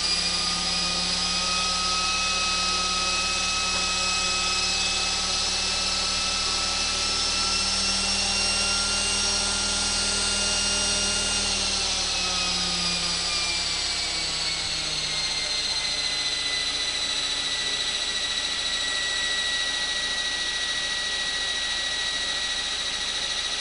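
Blade 450 3D electric RC helicopter running with its rotor spun up: a steady electric motor and gear whine with rotor blade noise. The pitch creeps up slowly, then drops about halfway through and holds steady at a lower speed.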